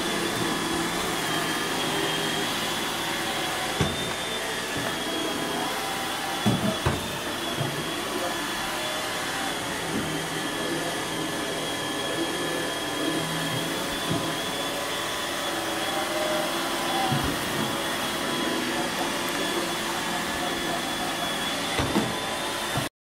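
Steady whirring of a motor-driven appliance, with a thin high whine over it and a few short knocks.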